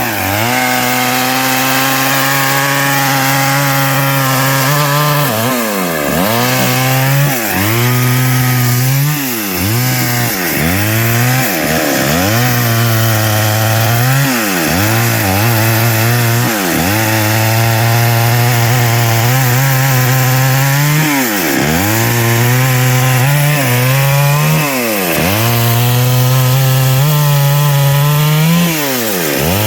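Stihl MS 382 two-stroke chainsaw running at high speed and cutting through wood. Its engine note dips sharply and climbs back again and again.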